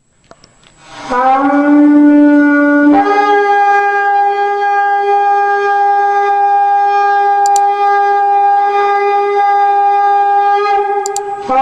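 Shofar blast: a lower note starting about a second in, then a jump up to a higher note held steadily for about eight seconds, dropping back to the lower note near the end.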